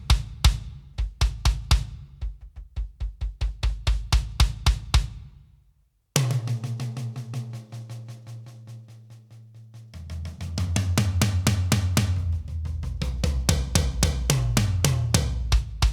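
Roland TD-50X electronic drum kit playing Vexpression's 'Popped' samples: a groove of kick, snare and cymbals. It drops out to silence for a moment about six seconds in, then comes back with low drums ringing, and near the end a run of hits falls in pitch down the toms.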